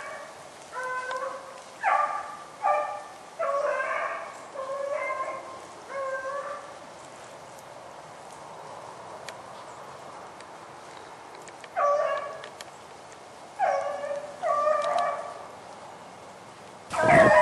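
Hunting dogs giving tongue on a rabbit's trail: short, pitched baying calls in two spells with a pause of several seconds between. Just before the end, a much louder and denser outburst of barking breaks out.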